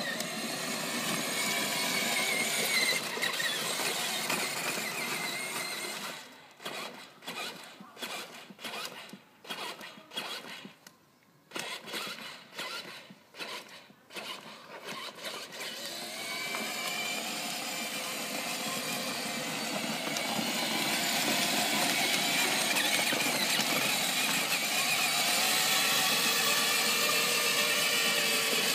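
A child's battery-powered ride-on toy car running, with a wavering whine from its motor and drive. For about ten seconds in the middle it stops and starts in short spurts, then it runs steadily again.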